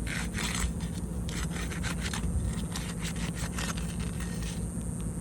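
Roof shingles being pried apart where their sealant strips have bonded them: a run of irregular scrapes and crackles as the seals break, thinning out near the end.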